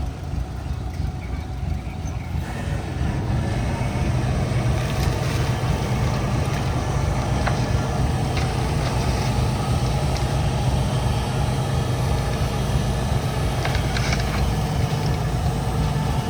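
Diesel engine of heavy earthmoving equipment running steadily under work, its deep drone picking up slightly in the first few seconds and then holding level.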